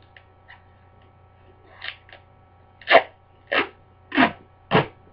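A person coughing: four short, loud coughs in quick succession about half a second apart, after a softer one about two seconds in.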